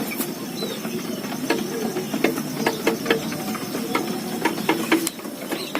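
Irregular light clicks and taps, a few each second, with a few faint, short high chirps.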